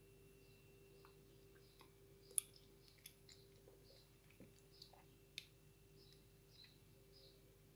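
Near silence: the faint steady hum of an aquarium filter pump, with scattered small clicks and soft ticks; the sharpest click comes about two and a half seconds in.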